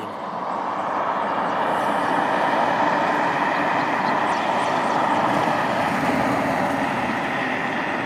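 Traffic on a busy highway close by: a steady rush of tyre and engine noise that swells over about the first second and then holds.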